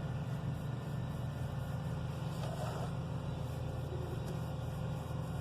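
A steady low motor drone, running evenly with no change in pitch.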